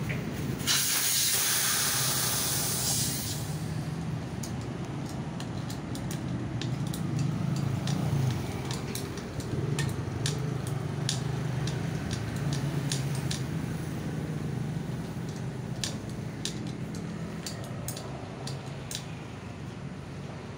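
A loud hiss of air lasting about two and a half seconds near the start, typical of air being let out of the scooter's rear tyre valve. It is followed by scattered sharp metallic clicks and taps of hands and tools working at the wheel, over a steady low hum.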